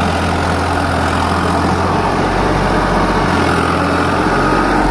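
Farmtrac 45 tractor's diesel engine running steadily with a deep, even drone while it pulls an overloaded trolley slowly through loose sand.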